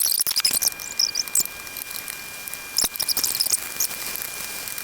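Fresh spinach sizzling and crackling in olive oil in a hot skillet as it wilts, with many sharp little pops and clicks.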